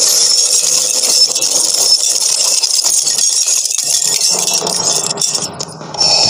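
Glass shattering, followed by a long run of clattering and tinkling fragments. The noise dips briefly a little before the end, then picks up again.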